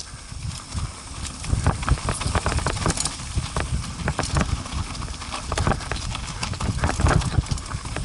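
ATV jolting over a rough, bumpy trail: irregular knocks and rattles, several a second, over a low rumble.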